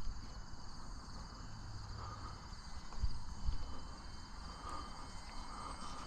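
Insects chirring steadily, with wind buffeting the microphone about three seconds in.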